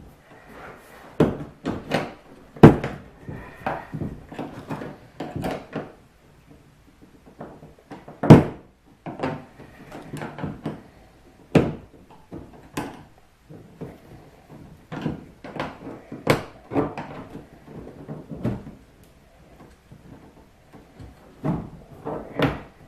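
Irregular knocks, clunks and scrapes of a plastic rod-holder tube being worked and forced onto its fitting inside a kayak's hull, with a few sharper knocks standing out.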